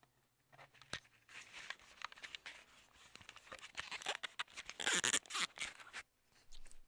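Handling noise at a lectern: a sharp click about a second in, then irregular crunchy rustling with small knocks, loudest around five seconds in, dying away near the end.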